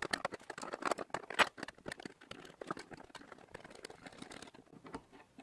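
Irregular light metallic clicks and rattles of a Brooks B66 saddle's steel under-frame and coil springs being shifted by hand, with one sharper click about a second and a half in.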